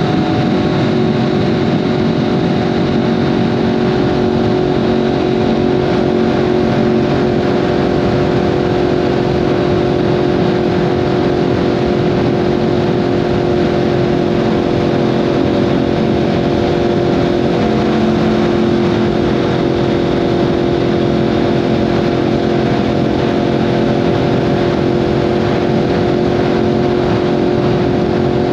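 A 2015 Yamaha R1M's crossplane CP4 inline-four with an Akrapovic exhaust, running at steady, unchanging revs while riding, over a constant rush of wind and road noise.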